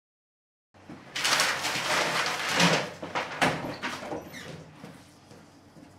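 A heavy restroom door being pushed open and swinging, with clattering knocks and rustling, loudest between about one and four seconds in, then dying away. A low steady hum of room tone cuts in just under a second in and runs on beneath it.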